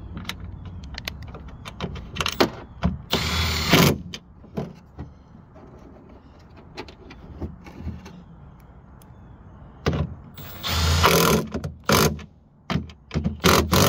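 Milwaukee Fuel cordless driver running in short bursts as it runs down the nuts holding a tailgate latch mechanism: one burst about three seconds in, another near eleven seconds, and a few quick ones near the end. Clicks and clatter of small parts being handled fall in between.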